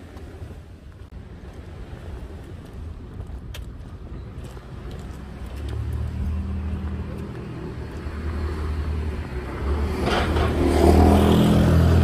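A motor vehicle's engine: a low, steady hum that grows louder about halfway through and is loudest near the end.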